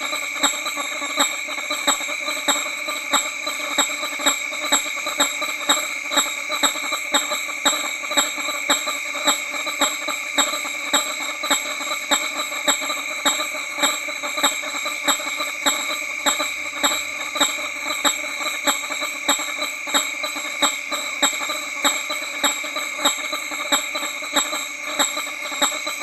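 Male hammer-headed fruit bat giving its honking display call close up, a sharp honk repeated steadily about twice a second. Other males honk in the background under a continuous din.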